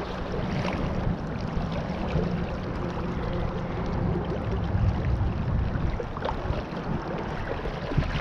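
Steady rush of river current, strongest at the low end.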